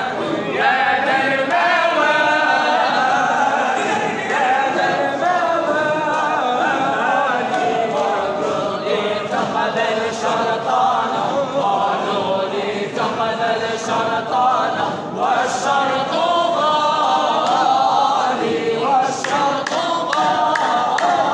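A large group of men singing Sufi devotional chant together, unaccompanied.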